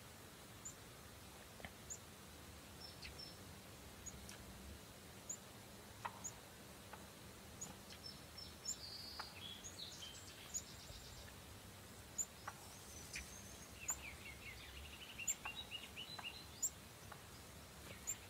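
Faint songbirds calling: a thin, high chirp repeated about once a second, with a few short trilled phrases and some soft clicks over a quiet background hiss.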